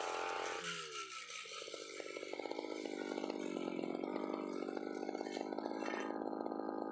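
UMA UM328 brush cutter engine running at high revs, then the throttle is let off about half a second in and the engine revs down to a lower, rapidly pulsing idle.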